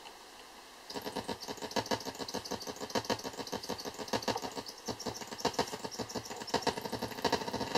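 Olegtron 4060 CMOS oscillator-divider noise box starting up about a second in and putting out a fast, uneven stream of crackling clicks and buzzy pulses with high-pitched content. The high pitch comes from patching the base oscillator frequency straight to the output (COM to TIP).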